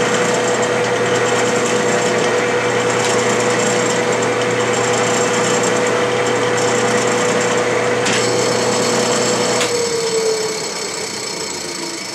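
Clausing metal lathe running under power while a single-point tool takes a threading pass on an Acme thread: a steady whine over machining noise. A click comes about eight seconds in, and about two seconds later the whine drops away in pitch and the sound eases to a quieter steady running.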